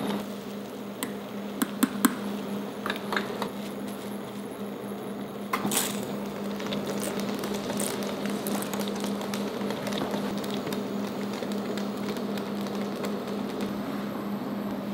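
Water boiling in a stainless steel pot, with a steady low hum under it. A few sharp metallic clicks come in the first few seconds, and about six seconds in there is a short rattling rush as a bundle of dry spaghetti drops into the pot.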